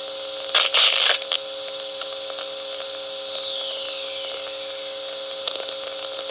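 Natural VLF radio picked up by a whistler receiver: crackles of lightning static (sferics) over a steady hum, with a whistler about three seconds in, a whistle that falls in pitch over about a second and a half.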